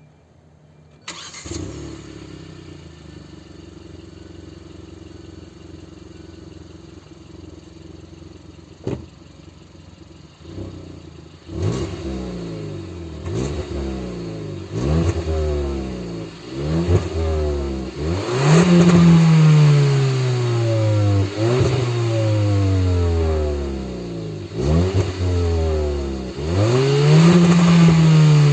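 Stock exhaust of a Hyundai i30 N-Line's 1.4 T-GDi turbocharged four-cylinder engine. The engine starts about a second in and idles steadily. From about halfway it is revved in repeated throttle blips, rising and falling, with the last revs climbing higher and held longer.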